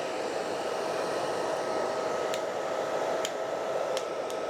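Hair dryer running steadily, heating the iPad to soften its screen adhesive: an even rush of air with a steady motor whine on top. A few light clicks come through about halfway and near the end.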